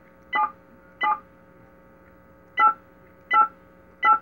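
Cordless phone keypad sending DTMF tones: five short two-tone beeps, two in the first second or so and three close together near the end. Each key sends its own tone pair, which the telephone exchange decodes as a different digit.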